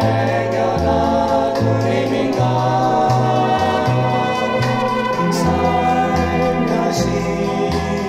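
Band pop song played from a vinyl record: sustained electric organ chords over a bass line that steps to a new note about every half second.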